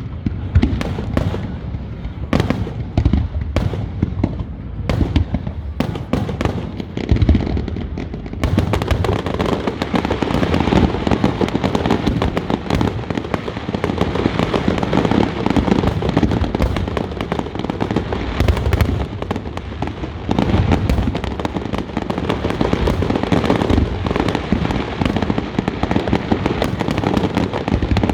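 Aerial fireworks bursting: separate booms and crackles at first, then from about eight seconds in a dense, unbroken barrage of booms and crackle.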